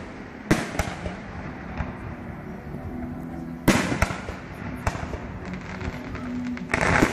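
Aerial firework shells bursting: several sharp bangs, the loudest about halfway through, with smaller pops and crackling between them.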